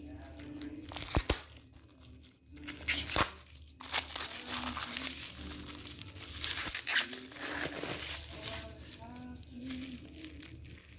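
Clear plastic packaging crinkling and tearing in uneven bursts as it is unwrapped from a sticker pack and a roll of label stickers.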